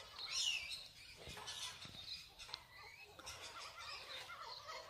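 Birds calling, with a burst of short high-pitched calls in the first second and fainter calls after.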